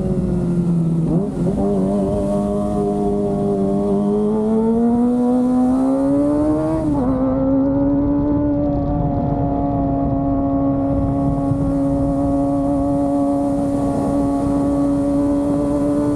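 Kawasaki ZX-25R's 250 cc inline-four engine running on the move: the pitch drops, breaks briefly about a second in, then climbs steadily under acceleration. After another short break a little before halfway, it holds a steady cruising pitch.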